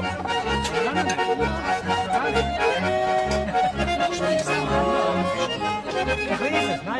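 Accordion music in a traditional folk style, with held melody notes over a steady, regular bass beat.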